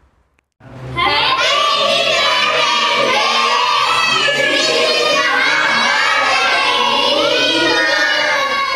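A group of children shouting and cheering together, many voices at once, starting about a second in after a brief silence.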